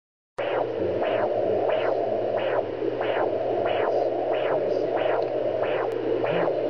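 Handheld fetal Doppler monitor picking up a heartbeat: even, rhythmic whooshes about one and a half a second over a steady hum and hiss. It starts suddenly about half a second in.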